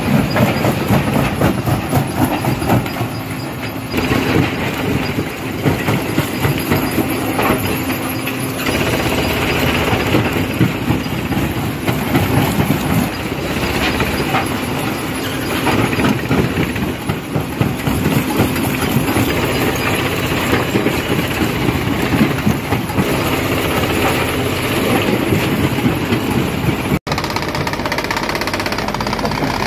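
Stone crusher breaking rocks: a continuous loud grinding clatter of rock being cracked and crushed, dense with quick knocks and cracks over the machine's running. It cuts out for an instant near the end, then carries on.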